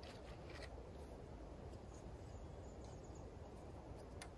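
Quiet woodland ambience with a steady low rumble and hiss, broken by a few faint light taps in the first second and one sharper tap near the end.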